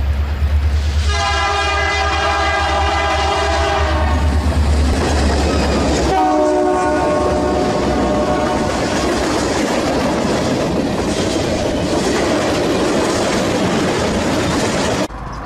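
Diesel freight locomotive's air horn sounding two blasts as the train approaches, a long one and then a shorter one, over a heavy low rumble. The steady noise of the train on the rails follows and cuts off abruptly near the end.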